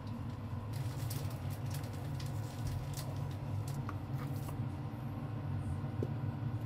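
Steady low hum of kitchen machinery, with scattered soft rustles and light taps, mostly in the first half, as raw pork cutlets are picked up and pressed into flour.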